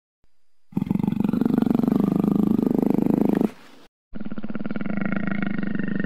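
Jaguar growling: a long, low, rough growl, then after a short break a second growl that carries on.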